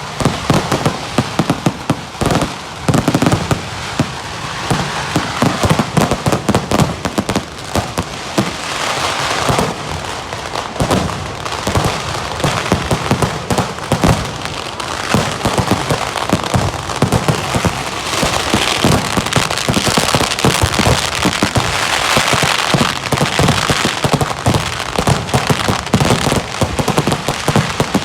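Vedikettu firework barrage: a dense, unbroken run of rapid, overlapping firecracker bangs over a continuous crackle.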